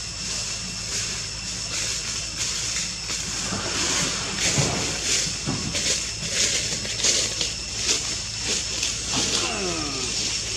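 Dogs barking repeatedly at monkeys in a tree, starting about a third of the way in, with a falling whine-like call near the end, over a steady high-pitched drone.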